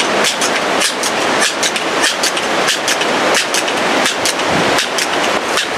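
Strong wind buffeting the microphone: a steady rushing noise broken by many short crackles.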